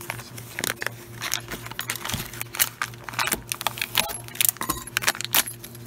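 Clear plastic parts bags crinkling, with the small metal parts of an electric-starter rebuild kit (spring, gear, clip, washer) clicking and clinking as they are handled and set down on a wooden workbench. A steady low hum runs underneath.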